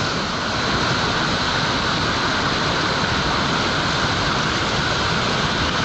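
Whitewater rushing through a whitewater park's play hole: a loud, steady wash of water noise.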